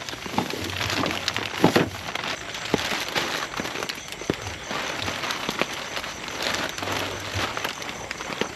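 Heavy rain falling steadily, with many irregular sharp drop hits close to the microphone.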